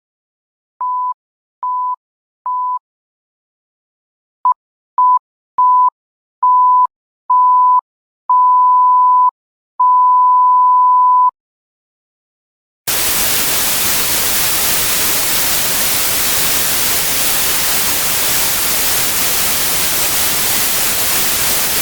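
An electronic 1 kHz beep tone in pulses: three even short beeps, a pause, then seven beeps that grow from quick blips to beeps over a second long. About thirteen seconds in, loud, steady white-noise static hiss cuts in abruptly.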